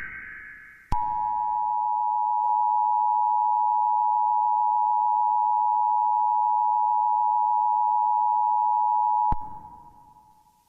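Emergency Alert System attention signal: the two-tone alarm, two steady tones close together just under 1 kHz, starts abruptly about a second in, sounds for about eight seconds, then cuts off and fades away.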